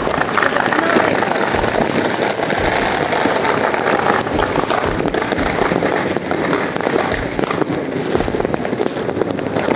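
Many fireworks and firecrackers going off at once: a dense, continuous crackling and popping with louder bangs scattered through it.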